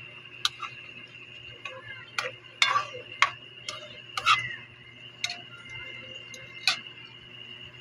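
Sharp, irregular clinks of a metal ladle against a steel wok while a simmering vegetable stew is stirred, about ten in all, some with a short ring.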